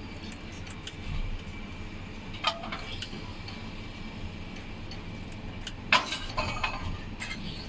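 Steady low hum inside a tower crane cab, with a few light taps and clinks on the window glass and one sharper knock about six seconds in, as a monkey climbs against the outside of the glass.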